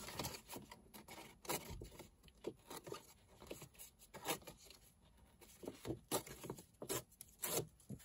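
Paper and craft materials being handled on a work table: irregular light rustles, taps and scrapes.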